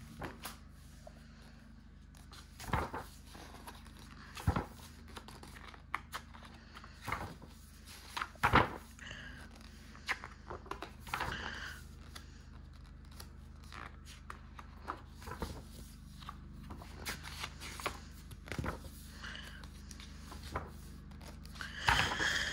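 Pages of a large art book being turned and handled by hand: scattered paper rustles and soft taps, with a page flipped over near the end. A faint steady low hum runs underneath.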